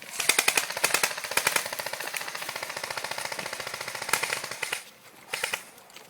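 Airsoft gun firing on full auto: a long rapid burst of clicking shots lasting nearly five seconds, then a short burst about a second later.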